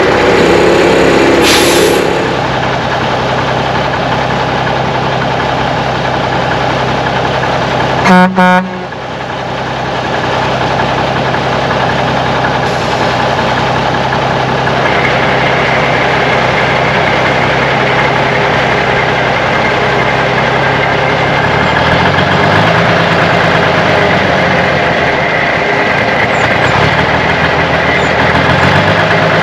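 Diesel engine of a 1982 Kenworth K100 cabover semi truck running, louder for the first couple of seconds and then settling to a lower, steady note. A short horn blast about eight seconds in is the loudest sound.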